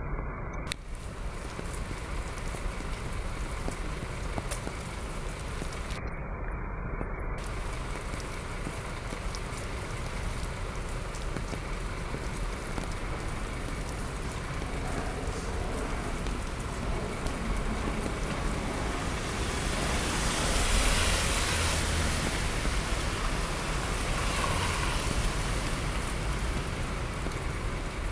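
Rainwater pouring in a thin stream from a drain outlet in a wall and splashing onto the street, a steady watery splashing. About twenty seconds in the noise swells louder for a few seconds, then eases.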